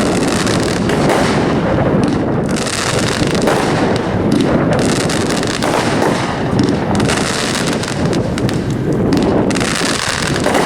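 Legend 500-gram consumer fireworks cake firing: a dense, unbroken run of launch thumps and crackling bursts.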